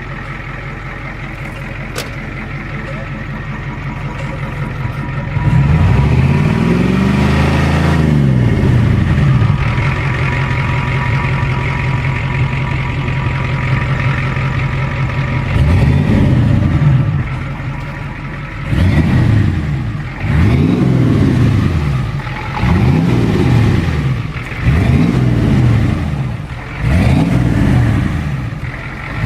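Ford 6.9-litre V8 diesel exhaust through a Flowmaster 40 series chamber muffler. It idles steadily, is revved up once about five seconds in and held up for several seconds, then is blipped repeatedly, about once every two seconds, near the end.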